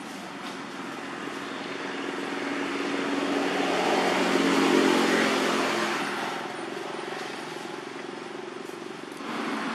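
A motor vehicle passing by: its engine hum grows louder to a peak about five seconds in, then fades. The noise steps up again near the end.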